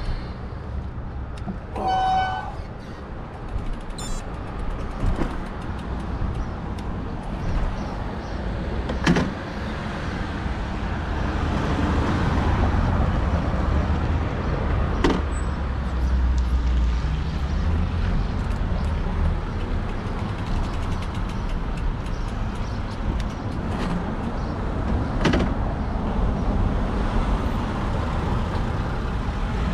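Steady low rumble of street traffic and ride noise, with a short pitched beep about two seconds in and three sharp clicks later on.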